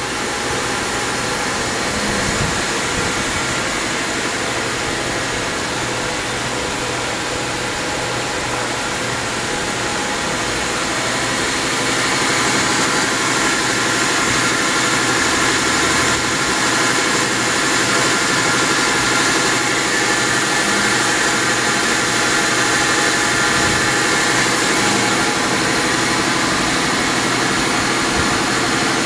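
Fadal VMC 3016 CNC vertical machining center running under power with its spindle turning: a steady mechanical hum and whine, getting louder about twelve seconds in.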